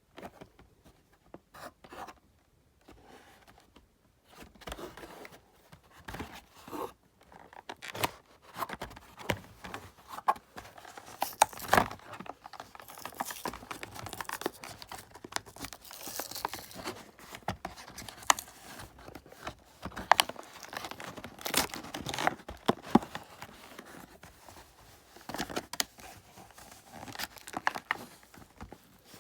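Diecast toy-car packaging being torn and pulled open by hand: cardboard ripping and plastic blister crinkling, with irregular sharp clicks and rustles throughout.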